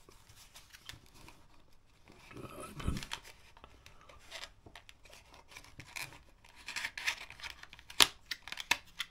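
Small cardboard box being handled and opened by hand: intermittent rustling and scraping of the cardboard flap, with scattered small clicks and one sharp click about eight seconds in, the loudest sound.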